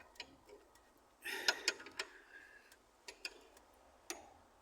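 Sparse metallic clicks and clinks of a hand spanner working the bolts of a car's steel cross-member, with a louder clatter about a second and a half in.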